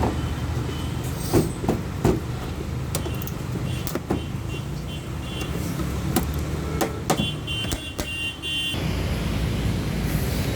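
A car's engine running steadily, with scattered sharp clicks and knocks throughout and a brief burst of high chirping tones about seven seconds in.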